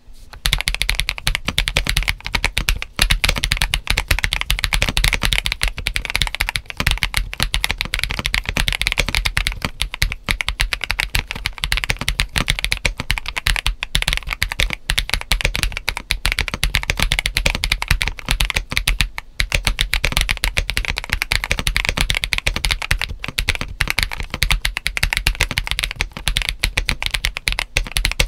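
Fast, continuous typing on a GAS67 mechanical keyboard modded for a poppy, clacky sound: Akko CS White linear switches under ABS doubleshot keycaps, with a PE foam mod. It gives a dense, unbroken stream of sharp key clacks.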